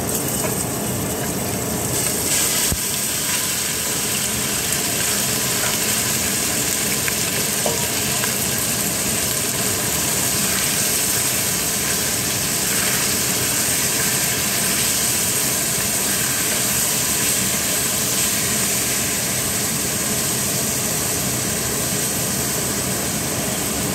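Sliced beef sizzling steadily in hot olive oil, stirred with a wooden spatula that scrapes and ticks lightly now and then.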